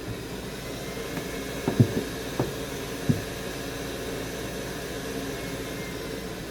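Steady whir of a bench blower or fan, with four light taps between about a second and a half and three seconds in, as tools knock against the board or bench during desoldering.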